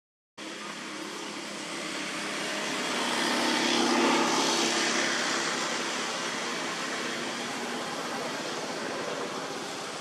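Engine noise of something passing by: an even rumbling hiss that swells to its loudest about four seconds in, then slowly fades.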